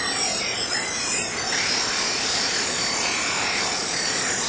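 Steady hissing, static-like noise, with a thin high whine joining it about a second in.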